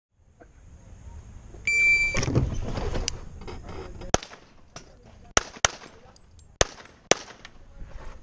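Electronic shot timer's start beep, about half a second long, then handgun shots at an uneven pace: about half a dozen sharp cracks, some in quick pairs.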